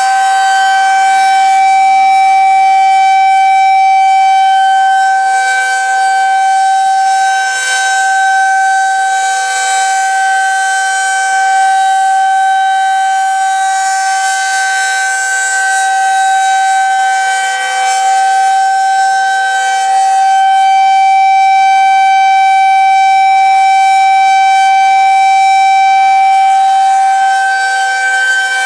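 Outdoor tornado warning siren holding a loud, steady tone with no rise or fall in pitch, its loudness slowly swelling and fading.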